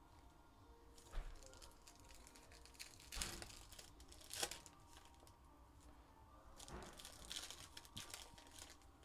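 Foil wrappers of Panini Phoenix H2 football card packs crinkling and tearing as packs are ripped open by hand, in several short bursts, the sharpest about a second in and again around three and four and a half seconds in.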